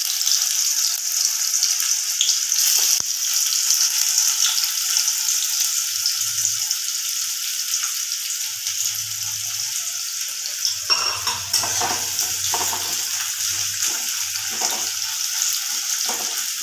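Sliced onions sizzling steadily in hot mustard oil and ghee in a metal kadai. From about eleven seconds in, a metal spoon stirs and scrapes them around the pan in irregular strokes.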